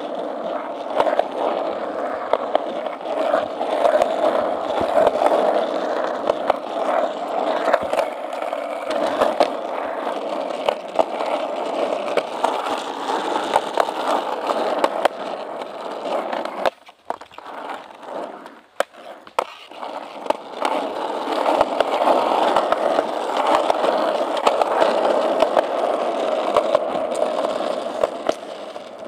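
Skateboard wheels rolling on a concrete sidewalk: a steady rolling rumble flecked with small clicks. About two-thirds of the way through, the rolling drops away for a couple of seconds, then picks up again.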